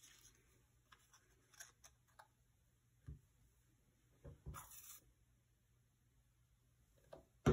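Paper craft petals being handled on a desk: soft paper rustling and slides with a few light taps, a brief scraping rustle about four and a half seconds in, and a sharper knock right at the end.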